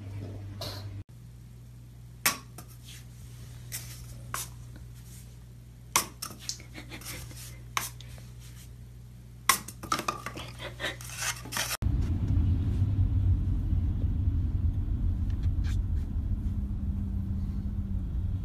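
A string of sharp knocks and clicks on a hard surface, irregularly spaced, then after a cut about twelve seconds in, the steady low rumble of road noise inside a moving car.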